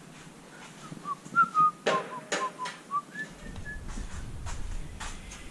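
A person whistling a short run of notes, with a few sharp knocks or clicks of handling among them.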